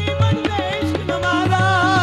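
Qawwali music: harmonium chords and tabla strokes, with a singer holding a wavering note in the second half.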